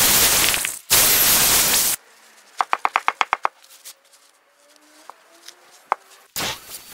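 Corded electric drill with a carving bit grinding into a wooden staff: a loud, steady hiss that dips briefly just before one second in and stops about two seconds in. Then a quick run of about eight light clicks, and a power tool starts up loud again near the end.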